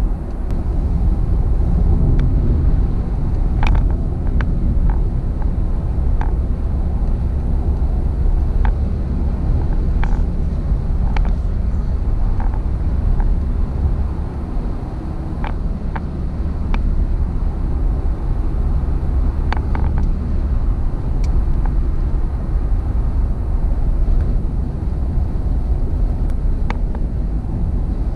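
Car interior noise while driving on a highway: a steady low rumble of tyres and engine, with scattered short ticks every second or two.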